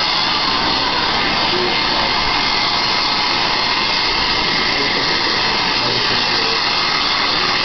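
Handheld hair dryer blowing at close range: a loud, steady rush of air.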